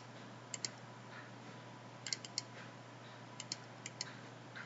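Computer mouse clicking in quick groups of two or three, four times, over a faint steady electrical hum.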